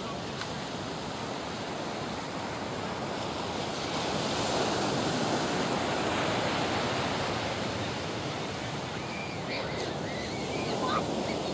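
Distant roar of the Thunderbirds' F-16 jet engines as a four-ship formation flies by. It is a steady rushing sound that swells for a few seconds in the middle and then eases.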